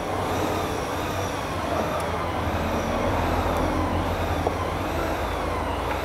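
Steady machine drone with a strong low hum and a faint high whine that wavers up and down about every second and a half.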